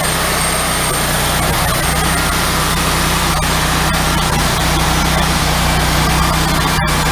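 Engine of a 1995 Wood-Mizer LT40 HD hydraulic portable sawmill running steadily at a constant speed, with a brief dropout in the sound near the end.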